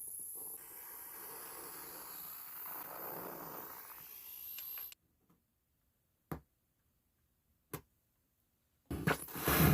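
Old mixer in a no-input feedback loop, its aux send patched back into channel 1: a faint hiss with a thin high whine, which cuts off suddenly about five seconds in. Two sharp clicks follow in silence, and a louder rustling noise starts near the end.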